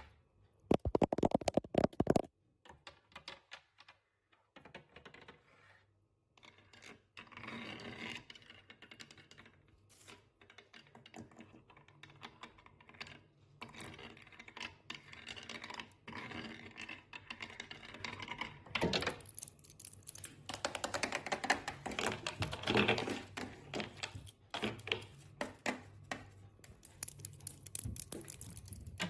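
Long decorated acrylic nails, with metal rings, tapping and scratching on varnished wooden furniture. The sound is quick runs of clicky taps mixed with scratching, with a loud flurry of taps about a second in and busier stretches later on.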